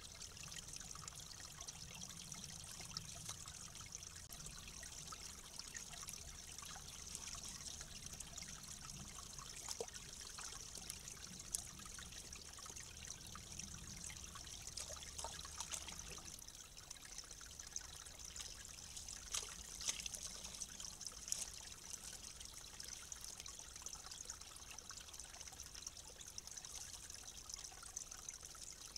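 Faint, steady trickle of water at a beaver dam, with a few faint scattered clicks.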